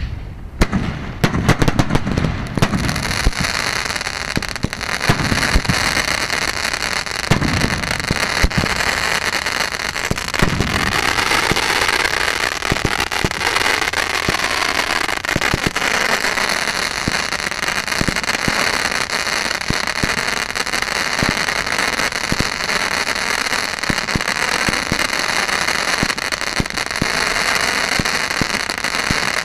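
Ground-fired firework fountains giving a steady loud hiss, thickly sprinkled with crackles. In the first couple of seconds a rapid string of sharp cracks rides on top, and a few low thuds come later.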